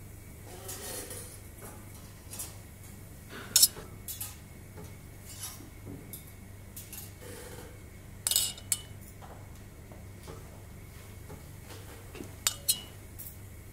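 Small metal instruments clinking against a metal bowl and each other as banana flesh is picked and scraped out. There are a few sharp clinks, some with a short metallic ring, over faint handling sounds and a low steady hum.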